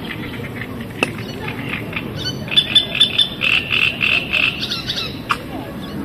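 Frogs croaking at a reedy lake: a rapid pulsing series of calls, about four a second, loudest in the middle, with a couple of sharp clicks.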